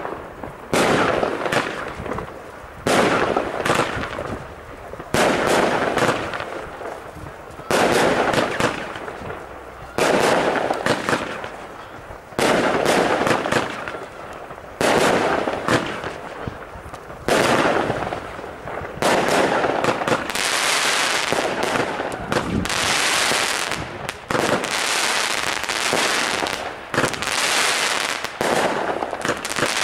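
Weco Chilled Boy firework battery firing shot after shot, about one every two seconds, each a sharp report followed by a fading hiss. From about twenty seconds in, dense crackling fills the gaps between the shots: the battery's crackling finale.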